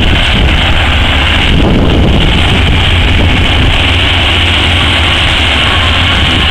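Diesel power unit of an O&K RH120-C hydraulic face shovel running steadily while it digs and loads, a loud low drone with a steady hiss above it. There is a brief surge of noise about a second and a half in.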